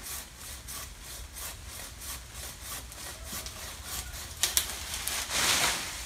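Pruning saw on a long bamboo pole cutting a mango branch overhead, in rasping strokes about two or three a second. About four and a half seconds in there is a sharp crack, then a loud rush of leaves as the cut branch breaks away and drops.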